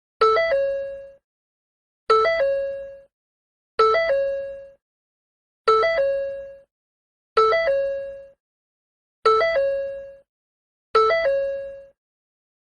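Ford door chime sounding over and over, seven times about every two seconds. Each chime is a quick run of three electronic notes that ends on a held tone and fades out before the next.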